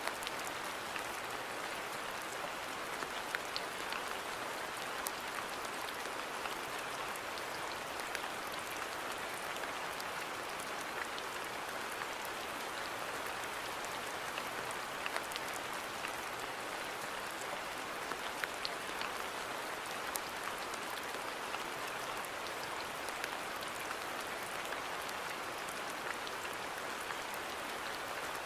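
Steady rain falling on a garden: an even hiss of rainfall with many scattered sharp drop impacts.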